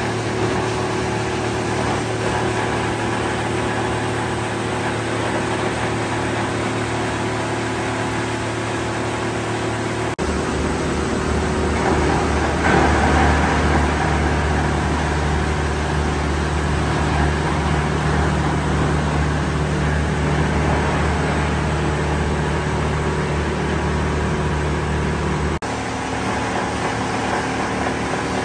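Plastic film washing and recycling line running: a steady machine noise from its electric motors and gear drives, with the crusher and washers working. The mix of hum tones changes abruptly twice, about ten seconds in and near the end.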